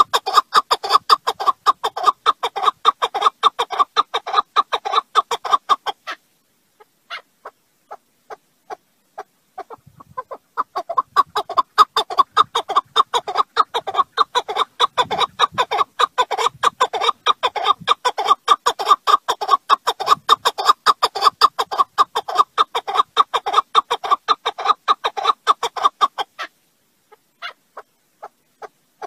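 Chukar partridge calling: a rapid run of repeated chuck notes. It falls to a few scattered notes after about six seconds, resumes about four seconds later and breaks off again near the end.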